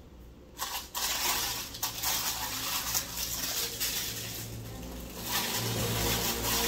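Crinkling and rustling of plastic packaging with light knocks, as statue parts are unwrapped and handled, starting about half a second in.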